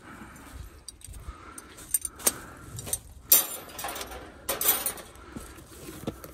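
Loose metal parts clinking and jangling against each other as they are picked up and handled, with a few sharp clinks and a short rustle of packaging.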